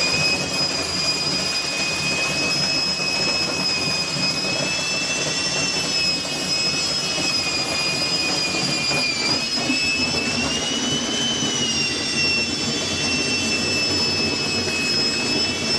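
Electric drill running continuously under load, spinning a dryer-vent lint brush on linked rods inside the vent duct: a steady high whine that dips in pitch briefly about nine seconds in, then rises slightly.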